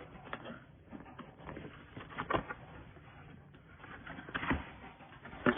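A cardboard product box being opened and handled: irregular scrapes and rustles of cardboard and packaging, with a few sharp clicks, the loudest about two and a half seconds in and again near the end.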